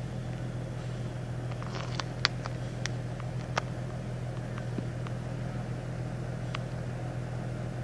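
A vehicle engine idling steadily with a low hum. A handful of sharp clicks come about two to three and a half seconds in, and one more later on.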